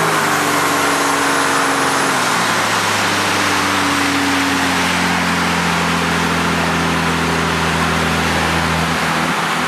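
Mercedes-Benz OM603 inline-six diesel, fitted with a tuned high-pressure 'Superpump' injection pump and a Holset turbocharger, running with the boat under way, over a steady rush of water and wind. The engine note drops about two seconds in, then holds steady.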